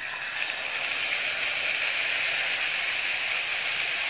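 Marinated chicken breast pieces sizzling in hot oil in a pan. The sizzle builds over the first second, then holds steady.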